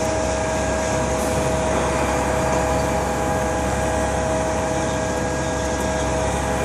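Construction machinery at a concrete pour running steadily: a constant engine drone with a fixed-pitch whine that holds unchanged throughout.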